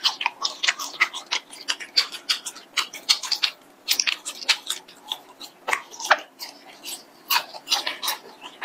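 Close-miked biting and chewing of a long spicy gluten strip (latiao): a quick, irregular run of short, sharp mouth clicks, several a second.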